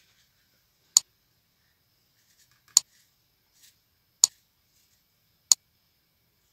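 Four crisp computer-mouse clicks, one to two seconds apart, each a single dry click that stops at once.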